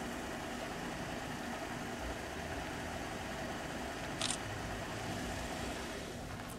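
A motor running steadily at idle, with one brief sharp click about four seconds in.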